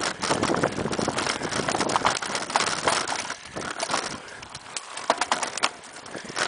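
Mountain bike ridden fast over a bumpy forest dirt trail: tyre noise with the bike rattling and knocking over roots and bumps. Busier for the first three seconds, then quieter, with a few sharp clicks about five seconds in.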